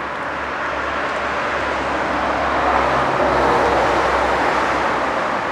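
Steady rushing of river water, swelling a little toward the middle.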